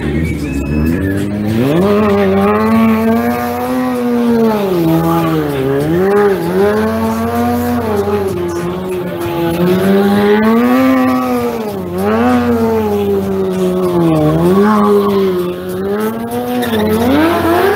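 Stunt motorcycle's engine revving hard, climbing in the first two seconds, then held at high revs with repeated dips and climbs every two to three seconds.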